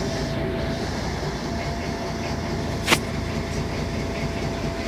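Mercedes-Benz O500MA articulated bus with a Viale body, heard on board while driving: a steady diesel engine and road rumble with a faint steady whine, and one sharp knock or rattle about three seconds in.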